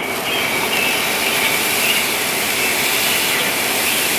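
Thick-cut ribeye steak sizzling on a hot grill grate: a loud, steady hiss that starts just as the meat is laid down and pressed onto the grate.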